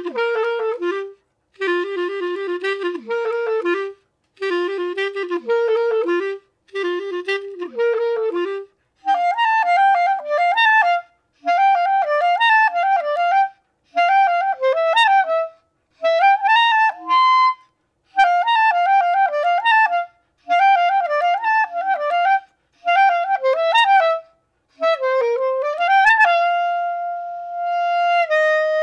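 Solo clarinet played in short phrases with brief pauses: the first few phrases in the low register, then higher from about nine seconds in, closing on a long held note near the end.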